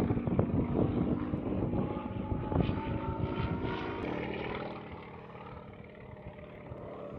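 Sukhoi Su-26 aerobatic plane's nine-cylinder radial engine and propeller droning in flight, with slight shifts in pitch, growing quieter after about four seconds as the plane draws away.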